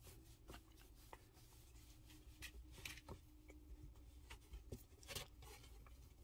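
Faint rustling and rubbing as a puppy's fur is wiped by hand, with a few soft scratchy strokes, the loudest a little past two seconds and about five seconds in.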